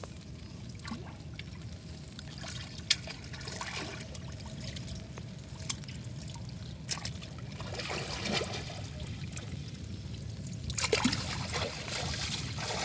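Water trickling and sloshing around people wading waist-deep, with a few sharp splashes; the splashing gets louder near the end.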